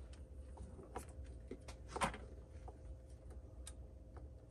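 A few faint clicks and light taps from hands handling a small metal lantern and its wiring, the loudest about two seconds in, over a low steady hum.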